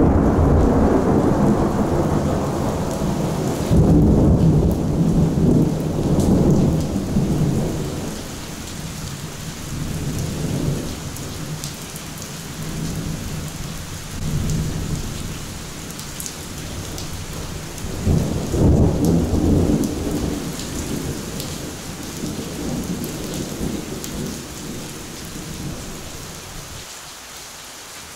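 Thunder from a very close thunderstorm over steady rain: a loud rolling rumble at the start that swells again about four seconds in and dies down after several seconds, another roll about eighteen seconds in, then fading near the end while the rain goes on.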